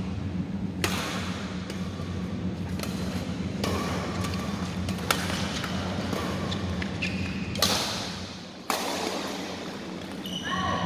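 Badminton rally: rackets striking a shuttlecock about five times, a sharp crack every one to three seconds, over a steady low hum. A few short squeaks come near the end.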